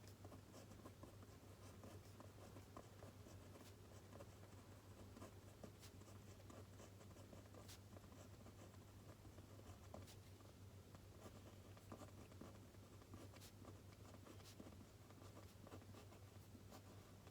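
Faint pen or pencil writing on paper, a run of light scratches and small taps at an uneven pace over a low room hum.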